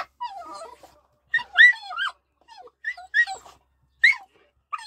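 Jack Russell terrier whining in a string of short, high whimpers that rise and fall in pitch, with brief gaps between them: the excited whining of a dog pestering to have the gun case in front of her opened.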